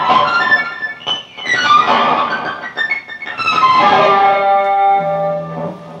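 Electric guitar played to imitate a flock of starlings chirping: many quick, high, squeaky notes, then a run of held notes that stops just before the end.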